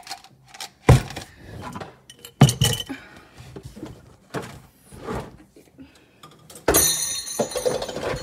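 Art supplies being handled and set down on a table: two sharp knocks about one and two and a half seconds in, scattered small clinks and taps, then a longer rattling clatter near the end.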